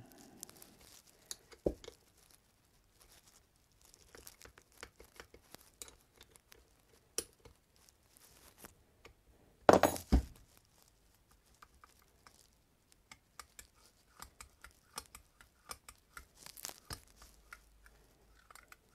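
Small parts of an SU HIF44 carburettor being handled and fitted on a workbench: scattered light clicks, taps and rustles. There is a sharp knock near two seconds in and a louder pair of knocks about ten seconds in.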